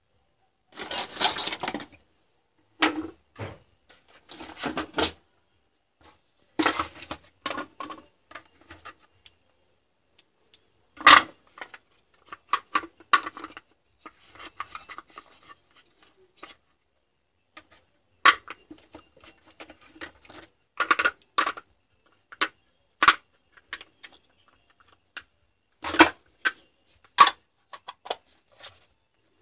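Hard plastic cordless-drill battery case and cylindrical 18650 lithium-ion cells being handled: irregular clicks, knocks and short rattles as the cells are fitted into the case. A scratchy rattle about a second in, and sharp knocks about 11, 18, 23 and 26 seconds in.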